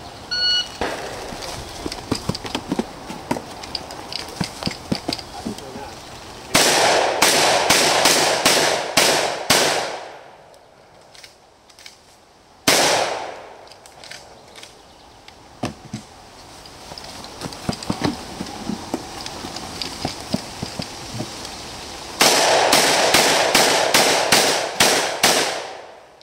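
A shot timer beeps once, then a shotgun is fired in rapid strings: about seven shots in three seconds, a single shot a few seconds later, and about nine more quick shots near the end.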